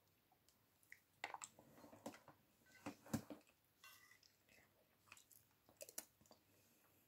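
Quiet close-up chewing of chicken rice porridge, with scattered short mouth clicks; the loudest click comes about three seconds in.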